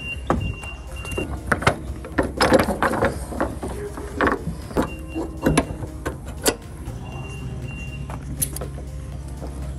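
A lorry's curtain-sided trailer being loaded: a run of sharp knocks and clatters through the first six or so seconds, a high warning beeper sounding in short spells, over a steady low engine hum.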